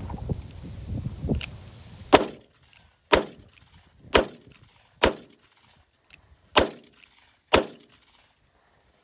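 Uberti single-action revolver fired one-handed in rapid succession: six shots about a second apart, starting about two seconds in, with a slightly longer pause before the fifth. The cylinder is emptied.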